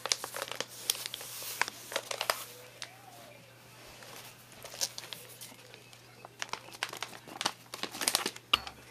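Paper tubes wrapped in tape rustling and crinkling as they are handled close up, with irregular sharp clicks and taps that come in clusters at the start and again near the end.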